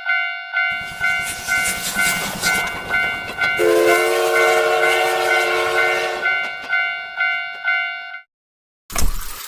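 Railroad crossing bell dinging about twice a second while a train passes with a steady clattering noise. About three and a half seconds in, the train horn sounds a chord for about two and a half seconds. Everything cuts off suddenly about a second before the end, followed by a short burst of noise.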